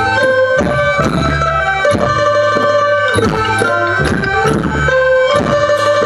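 Live traditional Thai folk ensemble music: drum strokes keeping a regular beat under held melodic tones.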